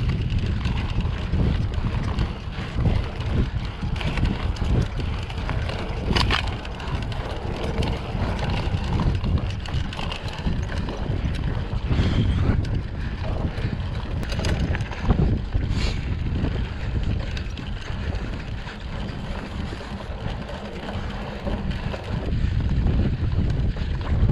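Wind buffeting the microphone of a camera riding along on a bicycle, a steady low rumble with a few faint clicks.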